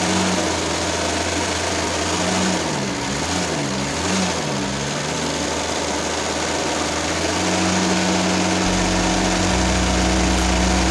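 Diesel engine running, revved up and down a few times by hand at the throttle about two to five seconds in, then settling back to a steady idle.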